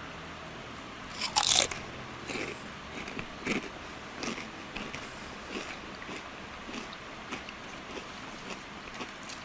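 A person bites into a crisp fried snack with one loud crunch about a second in, then keeps chewing with softer crunching clicks, about one or two a second.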